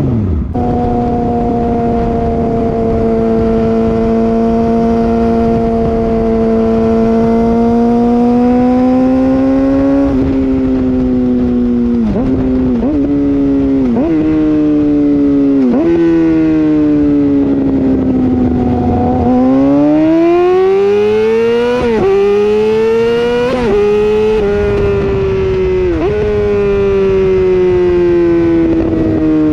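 2013 Yamaha R6's 600cc inline-four engine running loud through an M4 Street Slayer exhaust with the muffler box deleted, while riding. It holds a steady pitch at first, then pulls in short bursts with quick gear changes, eases off, and climbs hard through several upshifts about two-thirds in before rolling off.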